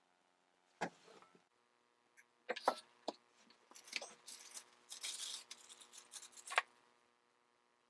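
Parts and packaging being handled during assembly: a few sharp clicks and knocks, with a longer rustle in the middle.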